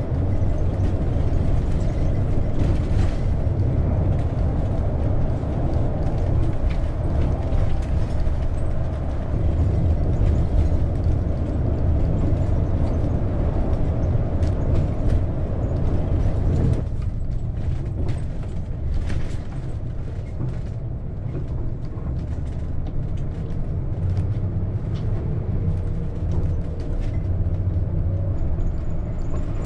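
Cabin noise inside a Winnebago Journey 37H diesel pusher motorhome under way on a rough road: a steady low rumble of engine and road, with frequent rattles and clicks from the coach. A little past halfway through the rumble eases and gets quieter, as the coach moves onto smoother pavement.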